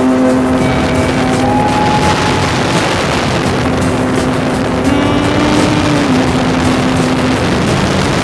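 Converted Yamaha snowmobile engine driving the propeller of a gyroplane in flight, a loud steady drone with rushing air noise. Its pitch rises slightly about five seconds in and settles back a second later.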